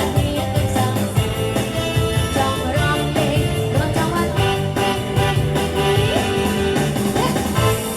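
Live band playing a Khmer twist dance tune, a rock-and-roll style song with a steady drum beat and bass line.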